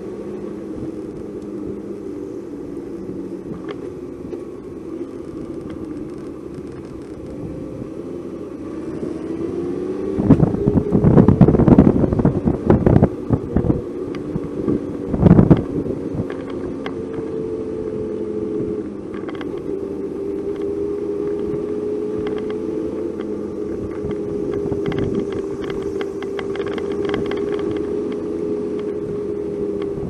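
Car engine and tyre noise heard from inside the moving car: the engine note climbs as it speeds up about a third of the way in, a run of loud knocks and rumbles follows for a few seconds, then the engine runs at a steady pitch.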